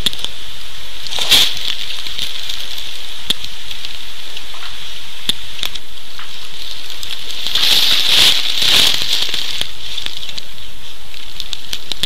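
Dry leaf litter crackling and rustling, with scattered clicks over a steady high hiss. It swells louder briefly about a second in and again around eight to nine seconds in.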